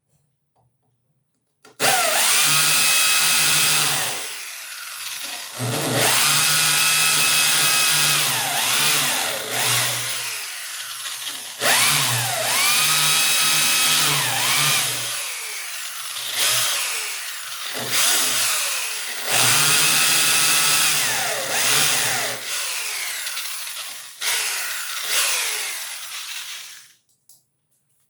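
Electric drill boring holes into a wall, in several runs of a few seconds each with short pauses, its motor whine rising as it spins up at the start of each run.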